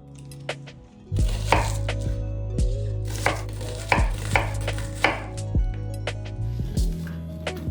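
A knife chopping food on a cutting board: separate, irregular sharp strokes at roughly one to two a second, starting about a second in.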